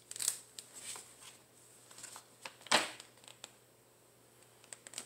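Cardboard packaging being handled: scattered light rustles and crinkles from a stiff card and a chip box, with one louder sharp crack a little under three seconds in.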